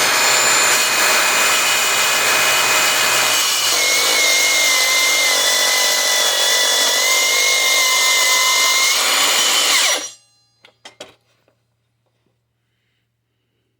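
Milwaukee M18 cordless 8-inch metal-cutting circular saw running and cutting 1-inch steel, a steady high whine whose tone shifts about a third of the way in as the blade loads up. The saw is released and winds down near the end, followed by a few light clicks.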